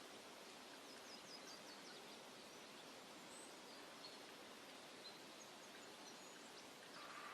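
Faint woodland ambience: a steady hiss with distant birds chirping, a quick run of short high chirps about a second in and a few scattered single high notes after.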